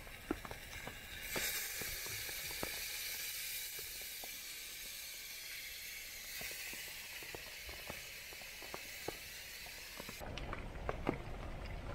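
Chicken in a hot cast-iron Dutch oven sizzling loudly as chopped tomatoes are poured in. The hiss swells about a second in, eases after about six seconds, and stops abruptly near the end.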